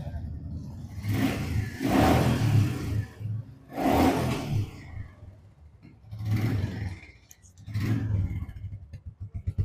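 Royal Enfield Meteor 350's single-cylinder engine idling and being revved in short throttle blips, about five times, with a pulsing idle beat between them.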